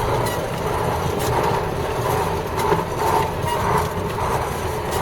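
KAMAZ fuel-tanker truck driving, heard from inside the cab: the diesel engine drones steadily, with a swelling and fading hum and a few short knocks from the truck on a rough road.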